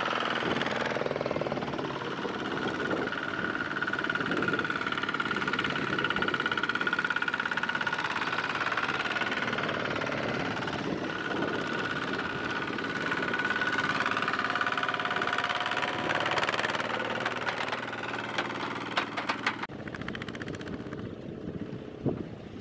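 Single-cylinder diesel engines of Kubota ZT140 walking tractors running steadily with a knocking chug, working hard as they pull loaded trailers through deep mud. The sound drops off near the end.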